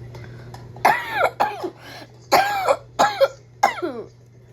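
A woman's coughing fit: about five harsh, voiced coughs in quick succession, starting about a second in. The sign of the illness she is still getting over.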